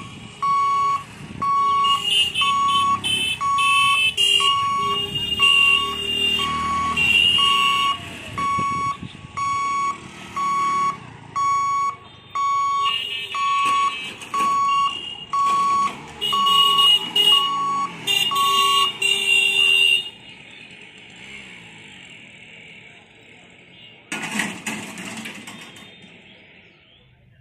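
Railway level-crossing warning alarm sounding while the boom barrier lowers: a steady electronic beep just over once a second, with a higher warbling tone over it. It stops about twenty seconds in. A brief loud burst of noise follows near the end.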